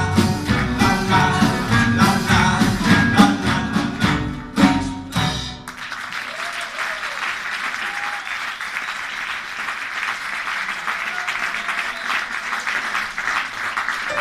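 A live band with keyboard, upright bass, drums and a horn plays the closing bars of a song and stops on a final hit about five and a half seconds in. An audience then applauds steadily.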